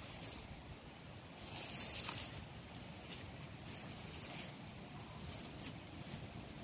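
Dry straw and dirt rustling and scratching as a cat paws and swats at the ground, with the loudest burst of scratching about two seconds in.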